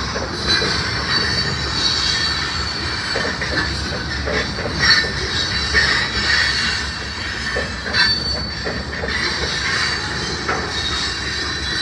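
Freight train of loaded centerbeam lumber flatcars rolling slowly past, its wheels squealing on the rails in a steady high squeal over a rumble, with a few sharp knocks.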